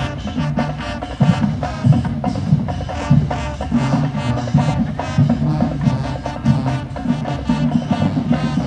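Music with a steady, busy percussion beat over a bass line, no vocals.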